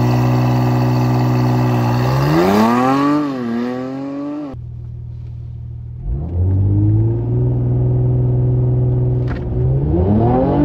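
Mercedes-AMG C43's twin-turbo V6 held at steady revs, then revved up and let fall back. After a sudden cut it climbs again to a steady held rev for a few seconds before launching, with the revs rising near the end.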